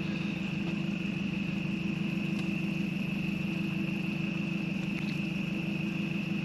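Boat motor running steadily at low speed with an even hum, under a constant high-pitched drone of night insects.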